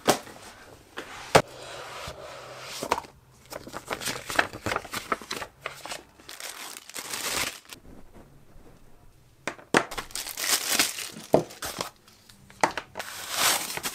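Paper and plastic packaging crinkling and rustling as a small cardboard box is unpacked by hand, with scattered sharp clicks and taps; the loudest click comes about a second in.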